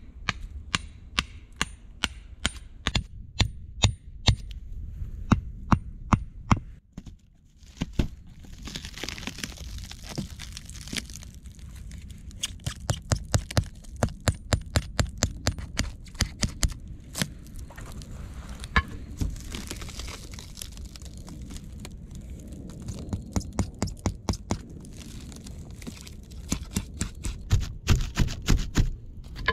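The back of a hatchet hammering wooden stakes into the ground: runs of sharp wooden knocks, about two to three a second, with short pauses between runs.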